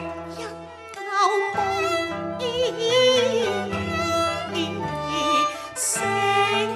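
A woman singing a Cantonese operatic song with vibrato into a microphone, over an accompaniment of bowed strings and a stepping bass line.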